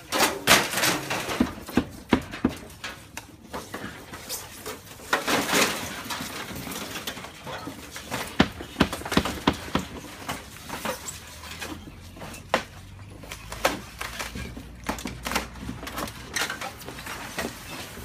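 Aluminum shake shingles being torn off a roof: irregular metallic clanks, scrapes and rattles, some sharp and loud.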